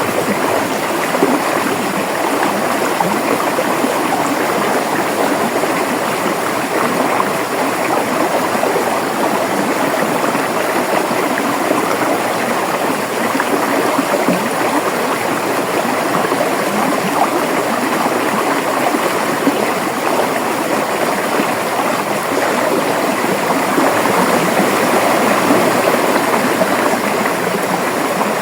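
River water running and gurgling steadily over rocks.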